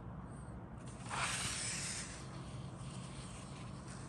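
A paper instruction booklet's page being turned: one papery swish lasting about a second, starting about a second in, over a low steady hum.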